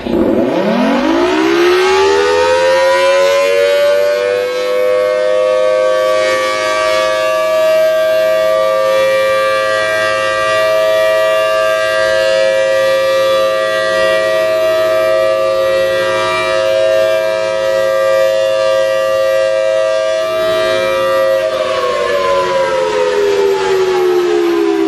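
Civil defense siren winding up over the first few seconds, holding a steady wail of several tones together, then winding down with falling pitch from about 21 seconds in.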